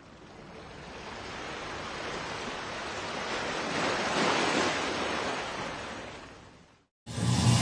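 Sea surf washing on a shore, swelling to a peak about halfway through and then fading away. Music cuts in abruptly near the end.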